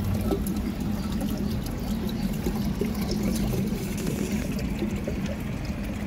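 Water running steadily into a man-made wishing well's basin, a continuous pouring trickle with a steady low hum underneath.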